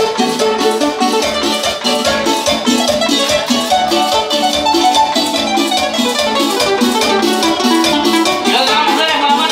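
Live cumbia band playing: a melody over a steady percussion beat, the sound growing brighter and fuller near the end.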